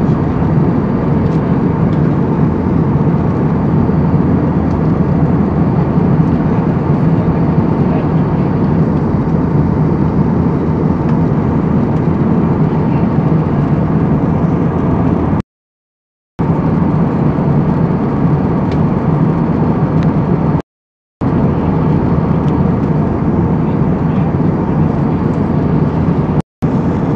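Steady cabin roar of an Airbus A320 in flight, its jet engines and airflow heard from a window seat behind the wing. The roar cuts to dead silence three times, twice for under a second and once very briefly near the end.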